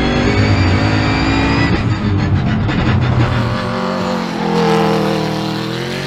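Turbocharged Ford Mustang GT V8 race car at full throttle, its engine note rising steadily as it accelerates, breaking off about two seconds in. The note then climbs again in the second half as the car accelerates out of a corner.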